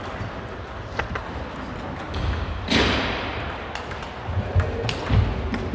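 Table tennis rally: the celluloid ball clicks sharply off rubber paddles and the table at uneven spacing, with low thuds of players' feet on a wooden sports hall floor. About three seconds in, a brief louder burst of noise stands out.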